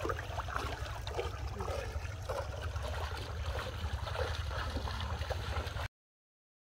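Water sloshing and splashing around a person's legs as he wades through shallow river water, over a steady low rumble. It cuts off abruptly to silence near the end.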